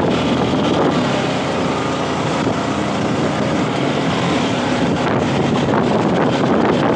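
Steady rush of wind buffeting the microphone of a motorcycle at cruising speed, with engine and tyre noise blended in underneath.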